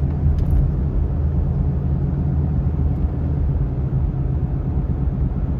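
Steady low rumble of tyre and road noise heard inside the cab of a four-wheel-drive Chevrolet Colorado pickup on the move. It is the noise the mechanic takes for a tyre problem, worn BF Goodrich all-terrain tyres, rather than a failing front wheel bearing.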